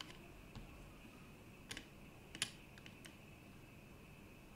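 A few light, sharp clicks and taps, about five spread over the few seconds, the loudest about halfway through, from tweezers and a small circuit board being handled on a workbench during SMD soldering. A faint steady high whine runs underneath.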